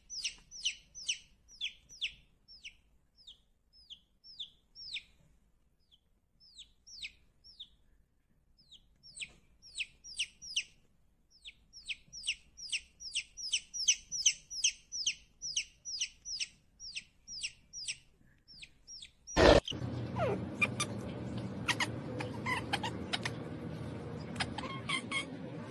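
Baby chick peeping over and over, short high notes that each slide downward, about three a second, thinning out for a few seconds in the middle. About 19 seconds in there is a sharp click, then a steady background hiss.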